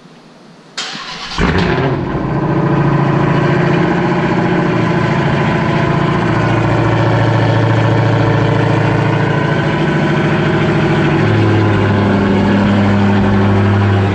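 Dodge Challenger Hellcat's supercharged V8 cranked by the starter and catching about a second in, then running at a loud, steady fast idle. The idle steps down to a lower pitch about eleven seconds in.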